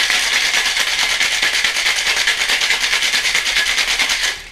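Ice cubes rattling hard inside a Boston cocktail shaker, a steel tin capped with a mixing glass, shaken vigorously with the ice hitting both ends. It makes a loud, fast, even rhythm of strikes, several a second, and the shaking stops abruptly near the end.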